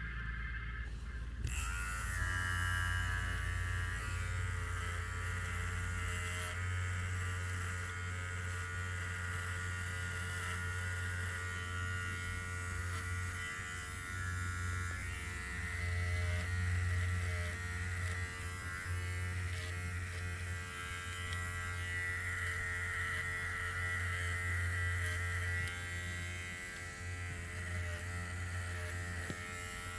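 Electric hair clipper buzzing steadily. It switches on about a second and a half in, and its level rises and falls slightly as it moves.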